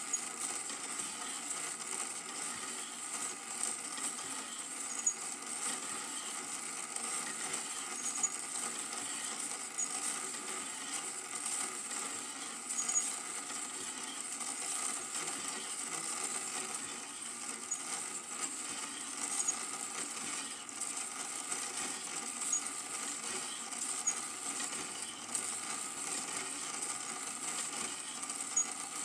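Super 8 film projector or transfer machine running: a steady mechanical whir and hum with small faint clicks every second or two, unchanged as the picture changes. It is the machine playing the silent film, not the race.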